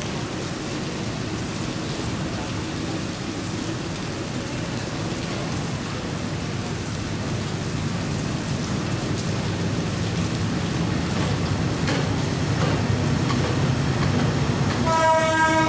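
Steady rain falling, with the diesel engine of an ex-Matsuura Railway MR-300 railbus rumbling under it and growing louder as the railcar approaches. About a second before the end its horn starts a loud, steady blast.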